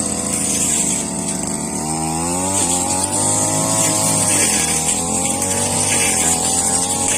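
Brush cutter engine running at high speed, its pitch rising about two seconds in and easing back a little after four seconds as the load on the blade changes.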